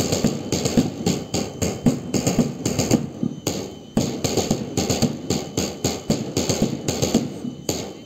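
Marching drums beating a steady, quick rhythm of sharp strokes to keep time for a march past.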